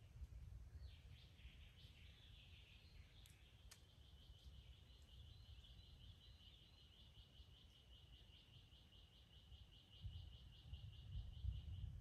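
Distant dry rolling thunder: a low rumble that swells near the end. Over it runs a long, rapid series of high chirps, about four or five a second, that stops just before the end.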